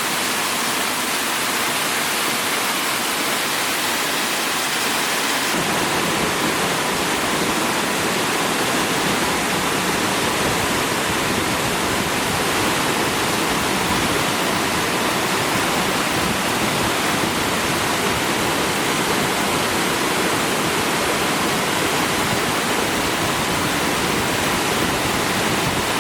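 A waterfall: a steady, dense rush of falling water. About five seconds in, the sound becomes fuller and deeper.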